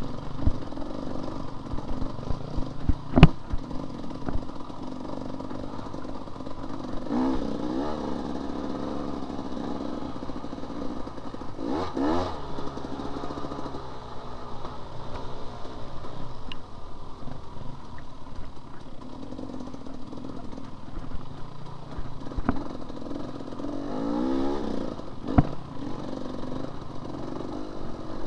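Enduro dirt bike engine running and revving up and down several times while riding, with the bike clattering and knocking over rough ground; the sharpest knock comes about three seconds in.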